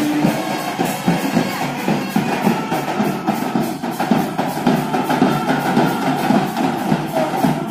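A band's drums, bass drum prominent, beating out a steady rhythm from a train coach as it passes, over the train's running noise.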